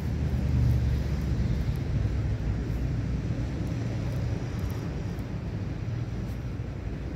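A low, steady engine rumble, loudest about a second in and then slowly fading.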